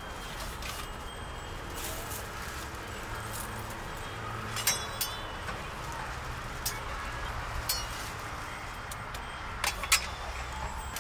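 Metal cooking utensils clinking at a street crepe cart: about six sharp clinks scattered over a steady low street hum, the loudest a double clink near the end.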